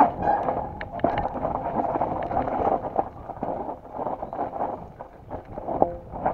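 Mountain bike rolling down a rough dirt trail: tyres crunching over dirt, roots and stones, the frame and chain rattling with frequent sharp knocks, and wind on the microphone.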